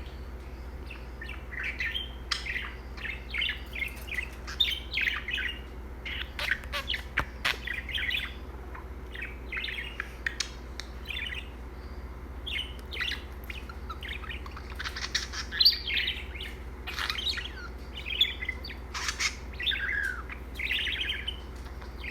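Budgerigar chattering: a continuous run of short chirps, warbles and sharp clicks.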